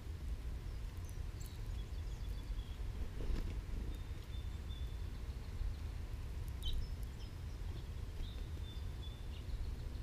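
Outdoor ambience: a steady low rumble, with faint thin, high-pitched bird calls three times and a couple of faint clicks.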